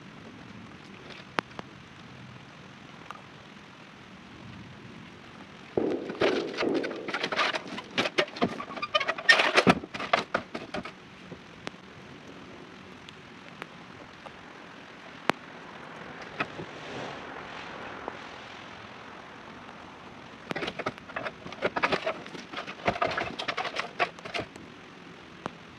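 Aluminium stepladder being shifted and set against a wall, clattering and scraping in two spells, the first about six seconds in and the second near the end, over a steady hiss.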